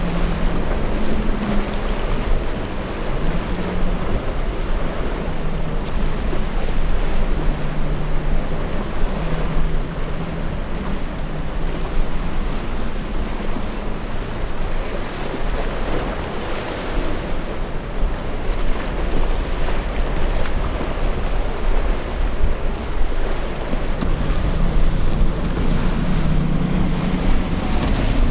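Waves breaking and wind buffeting the microphone, with the low hum of outboard engines coming and going as a center-console boat with twin Mercury 300 outboards powers through the surf.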